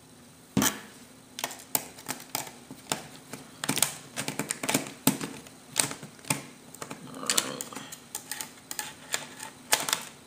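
Irregular metallic clicks and short scrapes of a knife tip used as a screwdriver on a small screw in an Asus Eee PC netbook's screen frame, as a stubborn screw is worked loose.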